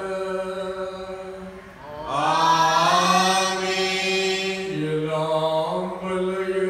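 A priest's voice chanting the solemn final blessing of the Mass in long held notes on a few pitches, growing louder and brighter about two seconds in.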